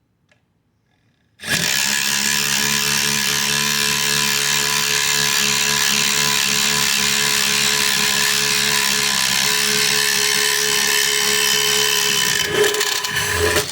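Ridgid subcompact brushless impact driver boring a 1-inch spade-type auger bit through a 4x4 wood post, starting about a second and a half in and running steadily under load for about eleven seconds. Its sound shifts briefly near the end, then it stops.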